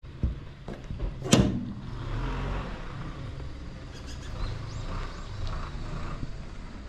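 Kobelco SK75SRD hydraulic excavator's diesel engine running steadily, with scattered knocks of demolition work and one loud, sharp impact about a second and a half in.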